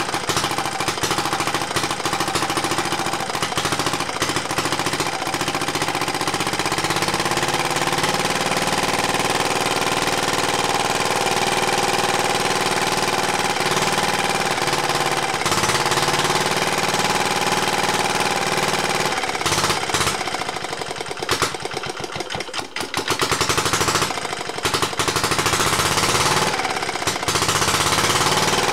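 Lister Petter AB1 single-cylinder air-cooled diesel engine running with a steady knocking beat, still cold after a hand-crank start. Its speed picks up a few seconds in. Past the middle it runs unevenly for a few seconds before settling again.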